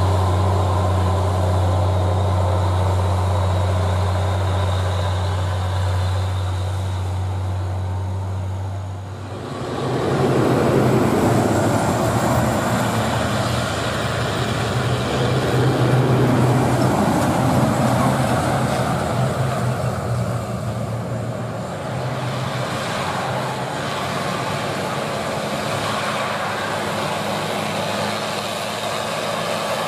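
Diesel dump trucks hauling stone on a long uphill road. A steady low engine drone from a loaded truck runs for about nine seconds, then changes abruptly to the engine and road noise of another dump truck approaching, which swells and then settles to a steadier run.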